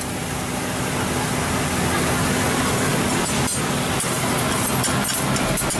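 Metal spatulas scraping and clinking on a steel teppanyaki griddle as bean sprouts are tossed, a few clinks about halfway through and more near the end. Underneath runs a steady sizzle and a low hum.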